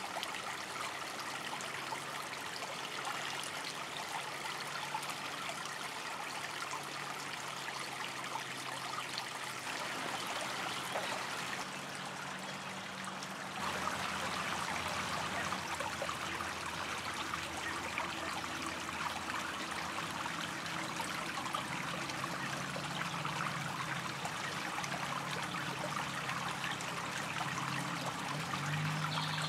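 Shallow creek running and trickling over rocks, a steady water sound that gets a little louder about halfway through.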